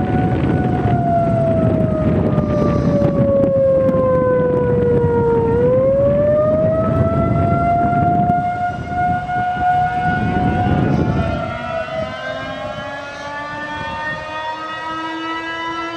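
Outdoor tornado warning sirens sounding during a system test. The nearest siren's wail falls in pitch for about five seconds, then rises back up, over a heavy low noise. About eleven seconds in the low noise drops away and several more sirens at different pitches are heard overlapping.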